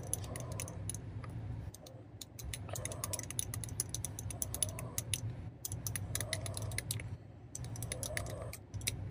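Spoon stirring fast in a small glass of coffee, honey and hot water, clicking rapidly against the glass, with two short pauses, about two seconds in and about seven seconds in.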